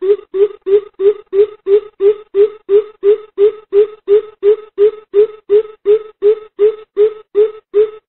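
Coucal (bìm bịp) calling the flock: a long, fast series of low hoots, about three a second, even in rhythm and creeping slightly upward in pitch. The series breaks off near the end.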